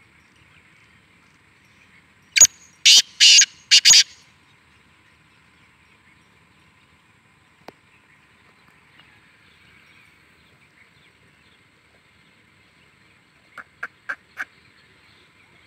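Black francolin (kala teetar) calling: a loud, harsh run of about five grating notes a couple of seconds in, then a quieter burst of four short notes near the end.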